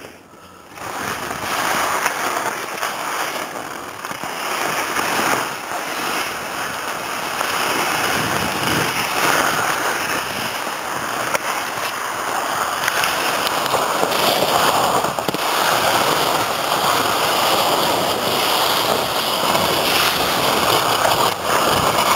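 Skis sliding and scraping over snow on a downhill run, mixed with wind rushing over the microphone. The hiss starts about a second in and stays steady, swelling and easing with the turns.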